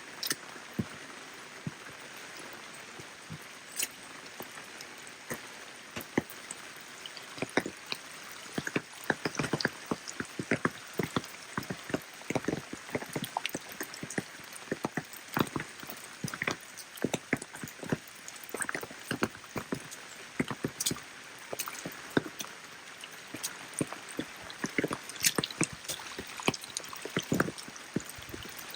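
Steady rain, with many heavy drops striking close by in an irregular, dense patter over a soft hiss of rainfall; the drops come thicker from about a third of the way in.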